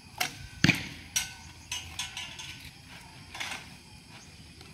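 A sharp snap with a low thud about half a second in as a traditional bow is shot, followed by several lighter clicks and knocks of bows and arrows being handled.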